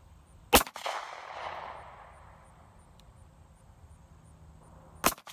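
Two shots from a compact carry pistol, about four and a half seconds apart. Each crack is followed by an echo that rolls away over about a second.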